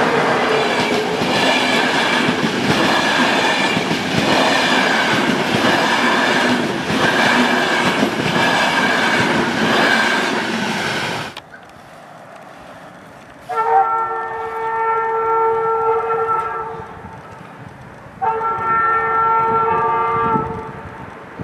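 Passenger coaches passing close by at speed, wheels clattering over the rail joints, until the sound cuts off abruptly about 11 seconds in. Then a locomotive horn blows twice, a long blast of about three and a half seconds and a shorter one of about two seconds.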